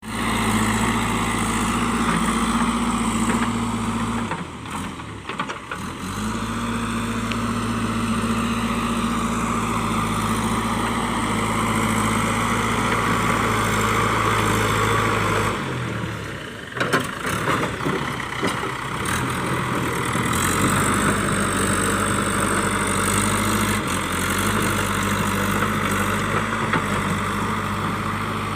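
JCB 3DX backhoe loader's diesel engine running at a steady pitch. Twice the engine note drops away into rough rattling noise, one stretch with a sharp knock about two-thirds of the way in, as soil and rocks are handled.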